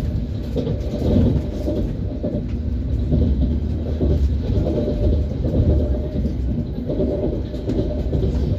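ES1P Lastochka electric train running along the line: a steady rumble of its wheels on the rails.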